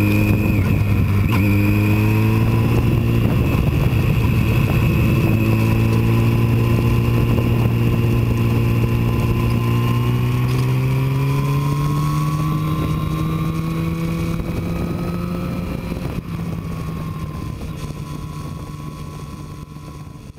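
Motorcycle engine running under way with wind and road noise. The engine note dips about a second in, then climbs slowly as the bike gains speed, and the whole sound fades out over the last several seconds.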